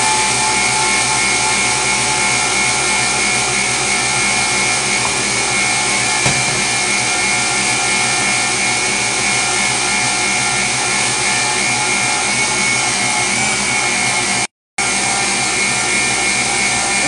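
Electric stand mixer running steadily at high speed, its whisk beating eggs and sugar to a thick foam in a stainless steel bowl: a constant motor whine over a steady whirring. The sound cuts out for a moment near the end.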